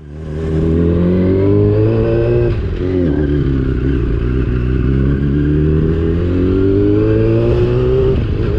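Yamaha R6 600cc inline-four sportbike engine accelerating through a loud exhaust. Revs climb for about two and a half seconds, dip briefly around three seconds in as it changes gear, then climb steadily again.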